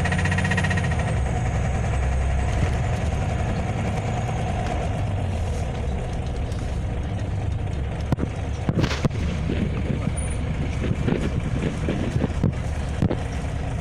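Scania OmniLink CL94UB city bus under way, heard from inside the passenger cabin: a steady low engine hum with a faint high whine in the first second. In the second half come scattered rattles and knocks from the bus body.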